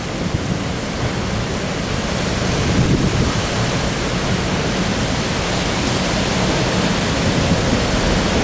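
Strong storm wind rushing steadily, with gusts rumbling on the microphone; it cuts off abruptly near the end.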